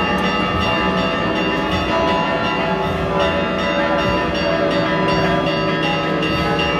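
Church bells ringing continuously, many strikes overlapping into one sustained clangour of held tones.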